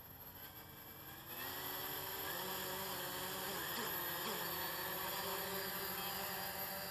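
Cheerson CX-20 quadcopter's four brushless motors spinning up about a second in, then running with a steady high buzz. The pitch dips and comes back up briefly around the middle as the throttle is worked.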